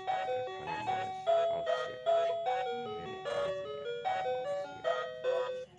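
Background music: a bright, chiming melody of short, stepping notes that breaks off right at the end.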